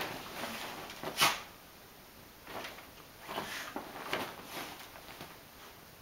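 A dog pawing and nosing through a duvet on a bed, the bedding rustling in short, irregular bursts, with one sharper, louder burst about a second in.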